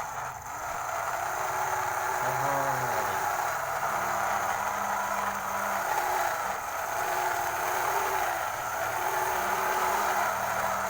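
A battery-powered toy truck's small electric motor and gears whirring steadily, with faint short electronic tones coming and going.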